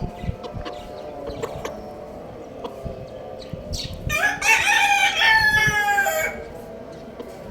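A rooster crows once, a single cock-a-doodle-doo about two seconds long, starting a little past halfway. Faint scattered clicks come before it.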